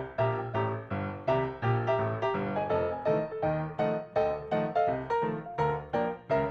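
Background piano music: a steady run of struck notes, about three a second.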